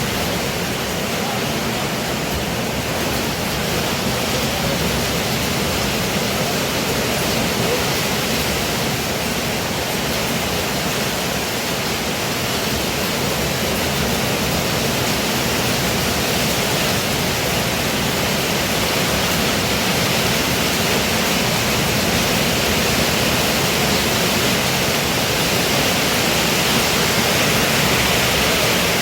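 Pouring rain falling steadily, a dense, even hiss.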